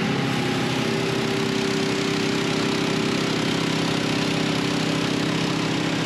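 Portable band sawmill's gasoline engine running steadily, without rising or falling in pitch.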